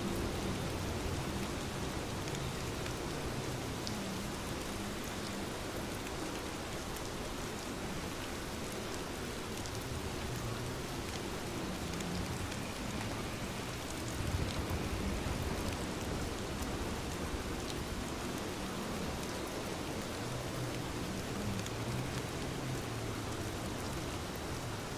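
Steady rain falling, an even hiss of drops with faint low rumbles now and then.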